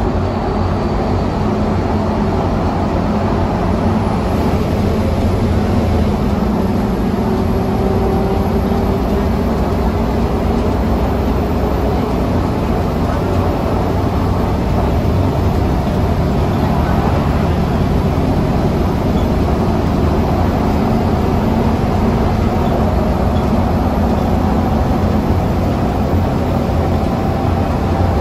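Steady drone of a Scania K320UA articulated city bus's engine and running gear, heard from inside the passenger cabin, with a faint whine that rises slowly in pitch through the second half.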